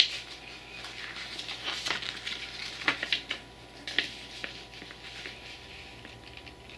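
A folded paper instruction leaflet being unfolded and smoothed out by hand: rustling and crinkling, with a few sharp crackles in the first four seconds, then softer handling.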